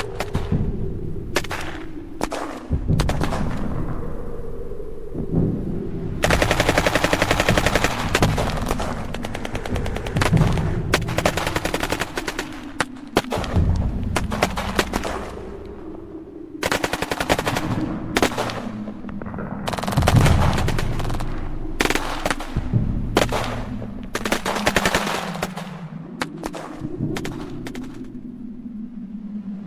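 War sound effect of a gunfight: bursts of automatic machine-gun fire mixed with single gunshots, over a continuous low rumble. The longest and densest burst comes about a quarter of the way through.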